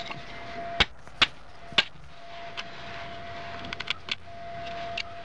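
Hammer tapping a self-tapping screw used as a punch to drive the pin out of a bicycle chain link. Three sharp taps about half a second apart in the first two seconds, then a few lighter taps later on.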